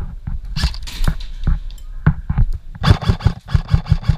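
Scattered sharp clicks and knocks, then a fast even run of them, about seven a second, from about three seconds in.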